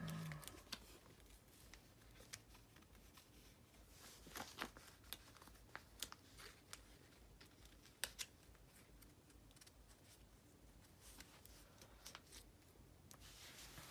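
Faint handling of photocards in clear plastic binder sleeve pockets: scattered small clicks and scrapes as the cards are slid in and adjusted.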